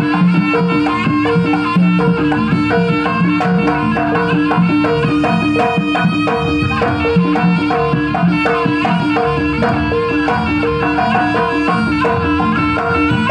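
Live jaranan gamelan music: a nasal slompret reed-horn melody over kendang drumming, with mallet-struck kenong pot gongs ringing in a steady repeating pattern and a large hanging gong.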